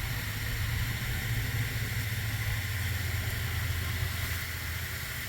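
Steady low motor hum, like an engine or machine running at idle, with a faint steady higher whine and hiss over it.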